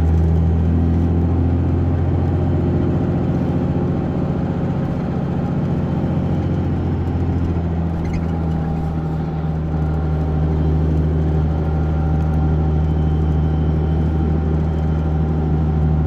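Road vehicle driving, heard from inside the cabin: a steady low engine hum with road noise.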